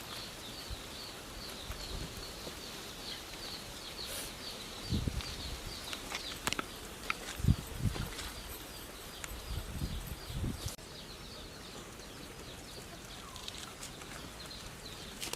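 Outdoor farm ambience with a fast run of high chirps, about five a second, from a small bird or insect, fading out after about six seconds. A few low knocks and bumps sound between about five and eleven seconds in.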